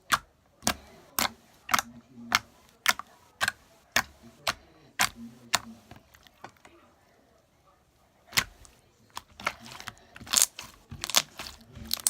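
Slime being squeezed and pressed by hand, giving sharp clicks and pops about twice a second. After a quiet pause of about two seconds in the middle, the pops come quicker and closer together.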